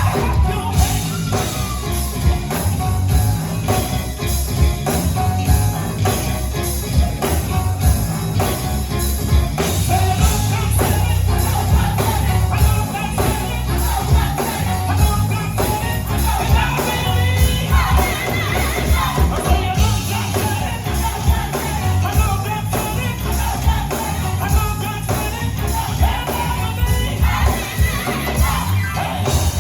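Gospel choir singing with a live band: drums, bass and keys keeping a heavy, steady beat under the voices.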